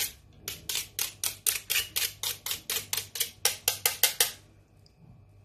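Knife blade scraping quickly across the teeth of a handheld stainless steel grater, clearing off freshly grated ginger in a fast, even run of rasping strokes that stops about four seconds in.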